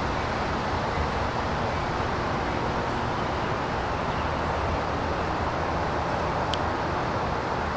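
A train rolling past on the mainline: a steady rumble and hiss of wheels on rail.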